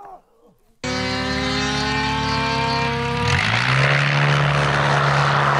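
Diamond DA20 light single-engine propeller plane flying low past. Its engine drone cuts in abruptly about a second in, sliding slowly down in pitch. From about three seconds in it settles into a deeper steady drone with louder propeller noise as the plane passes close.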